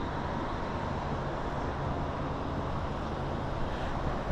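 Steady outdoor background noise on a rooftop, a constant rushing sound with a low hum underneath.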